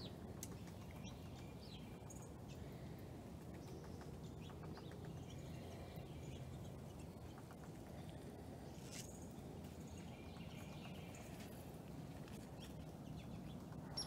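Faint outdoor ambience: a steady low background rumble with scattered distant bird chirps and calls.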